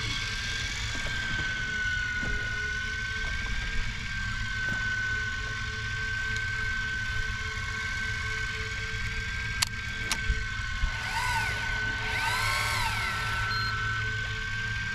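Electric fishing reel winding line with a steady motor whine over the low hum of the boat's idling diesel engine. Two sharp clicks about two-thirds of the way in, then a few short whines that rise and fall in pitch.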